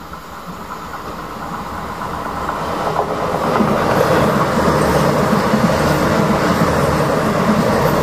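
Passenger train approaching and passing through a station at speed: the train's noise on the rails grows steadily louder over the first four seconds, then stays loud as the carriages go by close.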